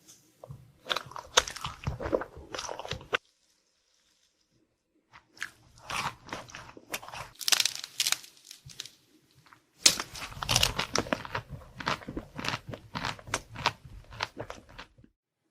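Close-up sounds of a person biting and chewing a crisp dessert, with dense crunching and crackling in three stretches separated by near-silent pauses.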